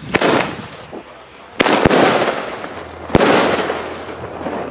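Consumer firework tubes firing aerial shells: several sharp bangs, the loudest about a second and a half and three seconds in, each trailing off in a hiss.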